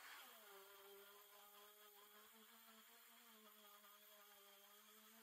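Faint, steady buzzing whine of a handheld rotary tool spinning a small wire brush wheel against a knurled metal part of an old breast drill to clean off rust and grime. The pitch settles slightly in the first half second, then holds steady.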